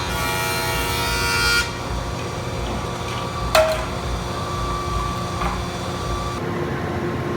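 Woodworking power tool milling walnut boards, running with a steady high whine. The whine cuts off about a second and a half in, leaving a lower steady machine hum. A single sharp knock comes about halfway through.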